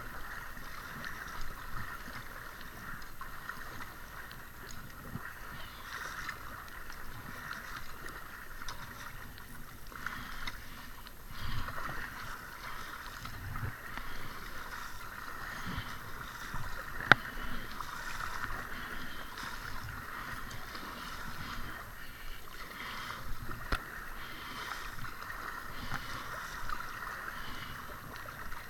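Double-bladed kayak paddle strokes swishing and splashing through slow river water from an inflatable kayak, over a steady hiss. One sharp knock about two-thirds of the way in.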